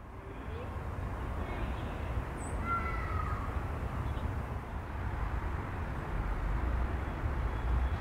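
Outdoor field ambience: a steady low rumble under a soft hiss, with a few faint bird chirps about two to three seconds in.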